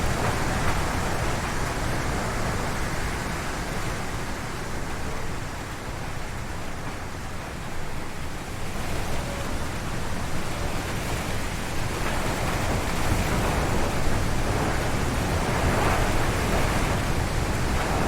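Strong wind gusting through forest trees. It eases off about a third of the way in, then builds again.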